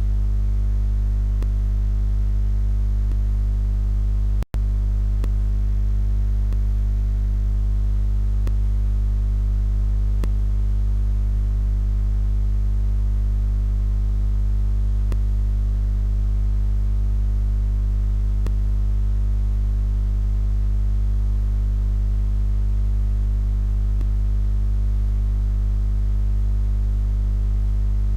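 Steady electrical mains hum with its overtones, loud and unchanging, with a split-second dropout about four and a half seconds in.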